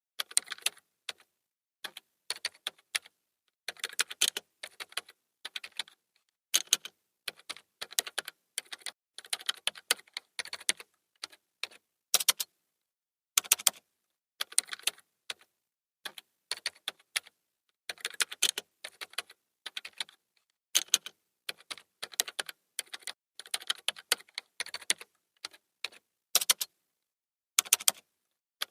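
Typing on a computer keyboard: irregular runs of fast key clicks with short pauses between bursts.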